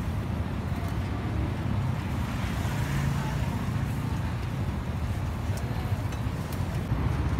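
Steady outdoor street noise: a low rumble of passing traffic, with wind buffeting the microphone and faint voices in the background.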